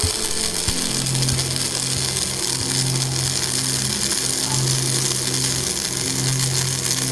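MIG/MAG welding arc in EWM coldArc short-arc mode, hissing and crackling steadily as the first (root) layer is laid on a steel joint. A low steady hum runs underneath from about a second in.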